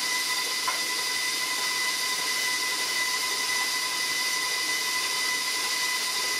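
Electric stand mixer running steadily, its beater whipping cream cheese and lemon curd in a steel bowl: an even motor whine over a hiss.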